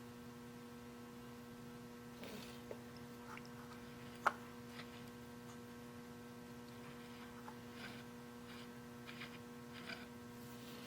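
Steady low electrical mains hum, with a few faint clicks and one sharper tick about four seconds in as the lead screw is handled in its V blocks.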